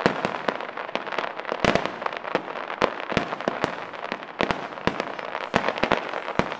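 Aerial fireworks going off in a dense, irregular barrage: many sharp bangs a second, overlapping one another, over continuous crackling from the glittering shells.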